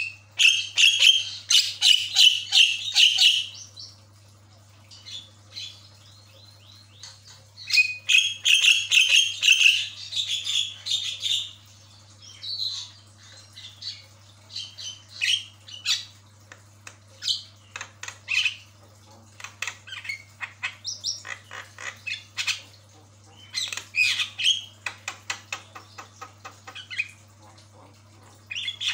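Javan myna (jalak kebo) chattering. It gives two long runs of fast, harsh notes, one at the start and one at about eight seconds, then shorter squawks and clicks spaced through the rest.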